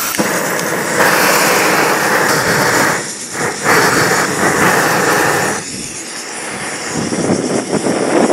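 Propane weed-burner torch running with a loud flame roar that surges and eases as its squeeze valve is worked. It swells about a second in, dips briefly, swells again, drops back and builds up once more near the end.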